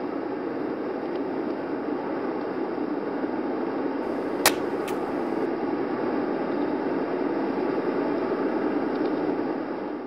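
Steady traffic noise, with one sharp click about four and a half seconds in and a fainter click just after.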